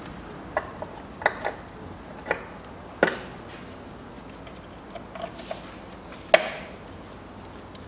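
Hands reconnecting plastic connectors, hoses and the rubber air intake duct at the throttle body of an engine bay, giving a series of separate sharp clicks and knocks, the loudest about six seconds in.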